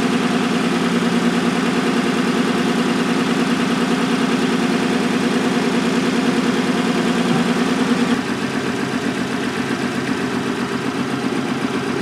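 Toyota Solara V6 engine idling steadily with a cylinder one misfire caused by a shorted ignition coil. Part of the hum drops away about eight seconds in.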